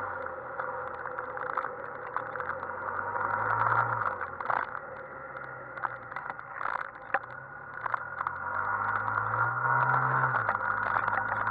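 Yamaha XMAX 125 scooter's single-cylinder engine heard on board while riding, its note rising as the throttle opens and falling away again several times. Steady wind and road noise runs underneath, with scattered short clicks and rattles.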